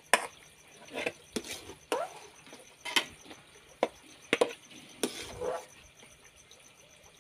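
Metal bowl knocking and scraping against an aluminium cooking pot while boiled mushrooms are scooped out of the hot water: about ten irregular clinks, some ringing briefly. Crickets chirp steadily and faintly behind.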